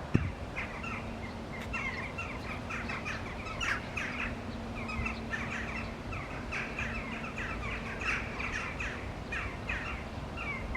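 Small birds chirping as a flock, many short overlapping notes with hardly a pause, beginning just after a sharp click at the very start.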